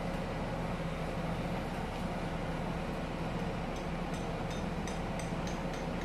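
Steady machinery drone with a low hum. In the last two seconds there is a run of light metallic ticks, about four a second.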